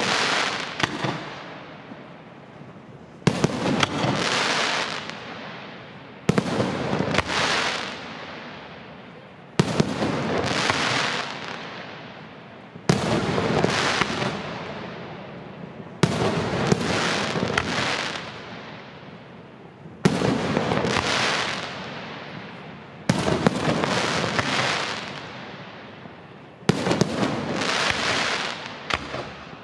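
Aerial firework shells bursting one after another, about every three to four seconds. Each sharp bang is followed by a few seconds of dense crackling from glittering crackle stars, fading away before the next bang.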